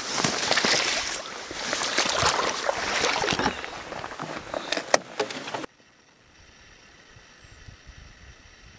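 Water splashing and sloshing around a canoe in a shallow creek, with sharp knocks against the hull. It cuts off abruptly about six seconds in, leaving only faint outdoor hiss.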